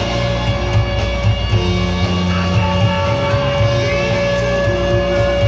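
Loud rock music with guitar and a driving bass line playing over an arena's sound system.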